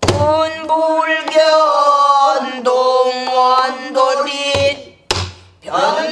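A woman singing a pansori danga in a full, husky voice with long held, wavering notes. A buk barrel drum gives a deep stroke at the start and another about five seconds in.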